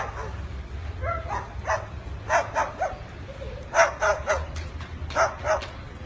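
A white cockatoo giving short, dog-like barking calls in quick groups of two or three, several times over.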